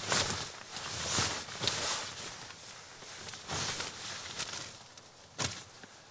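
Irregular crunching and rustling of a person moving about, footsteps and handling of gear, in uneven bursts, the loudest at the start, about a second in, and near the end.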